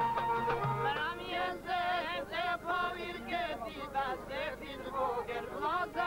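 Male voices singing an Albanian folk song with wavering, ornamented lines, accompanied by a plucked long-necked lute and an accordion. The singing comes in about a second in, after a short instrumental passage.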